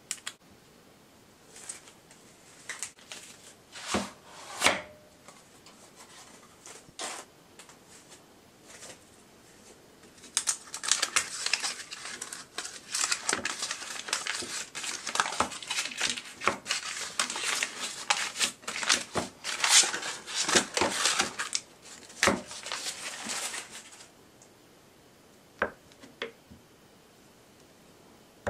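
A block of butter being taken from its cardboard carton and unwrapped by hand. A few scattered taps and rustles of the box come first, then about a dozen seconds of dense crinkling and tearing of the butter's paper wrapper, and near the end a few light knocks.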